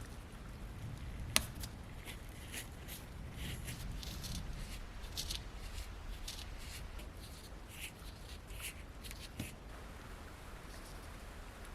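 Small, irregular scrapes and clicks of hand work with small tools on a miniature Zippo lighter's metal parts, with one sharp click about a second and a half in. The strokes thin out over the last couple of seconds.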